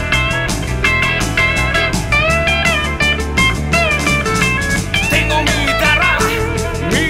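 Rock band recording: a lead guitar line with bent, gliding notes over bass and drums.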